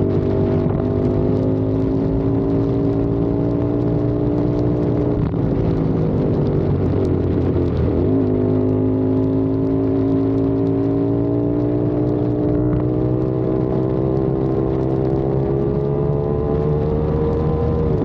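CFMOTO 450SR parallel-twin engine running under way, its note climbing slowly, dipping and wavering about six seconds in, then climbing again until a sudden drop near the end, as with gear changes. Wind buffets the microphone underneath.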